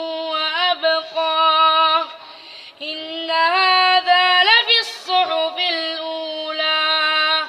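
A child's high voice chanting Quran recitation in long, melodic held notes with bending ornaments, and a short breath pause about two seconds in.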